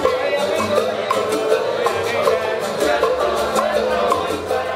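Small Cuban band playing live: upright double bass, acoustic guitars and singing voices over a steady percussive beat, beginning to fade out at the very end.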